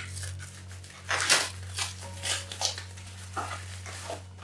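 Retail packaging being unboxed: a run of irregular crinkling, rustling and scraping noises, the strongest about a second in.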